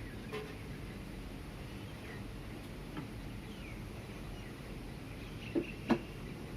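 Early-morning city ambience: a steady low traffic rumble with a few faint bird chirps, and two sharp knocks close together near the end.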